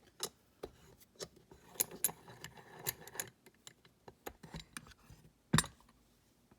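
Small metal clicks and clinks as lock-picking tools and a dimple lock are handled, with one louder knock about five and a half seconds in.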